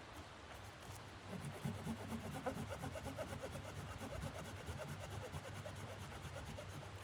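Hand saw cutting through wood in quick, repeated back-and-forth strokes, starting about a second in.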